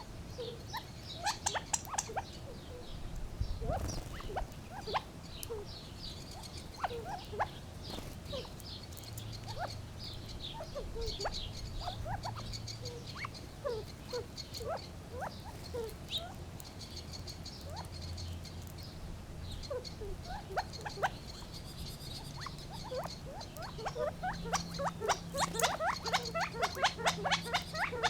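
Gambel's quail calling: many short clucks and chips scattered throughout, thickening into a rapid run of quick notes near the end.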